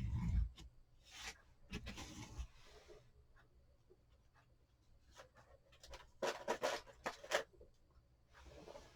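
Short scattered rubbing and scraping strokes of hands working craft materials on a small painted wooden tag, with a busier run of strokes about six to seven and a half seconds in.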